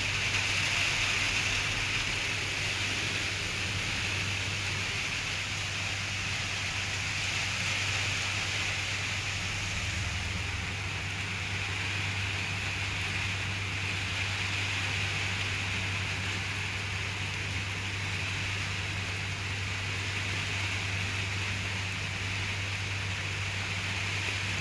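Heavy rain falling steadily, an even hiss that does not let up, with a steady low hum beneath it.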